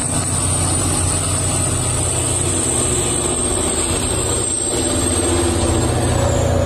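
Large mining haul truck driving on a dirt haul road: steady low, heavy engine drone, with a thin high whine over it that dips slightly in pitch near the end.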